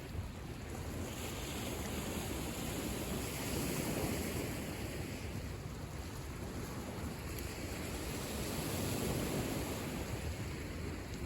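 Lake Michigan waves washing onto the shore, a steady rush of surf that swells about every five seconds, with wind rumbling on the microphone.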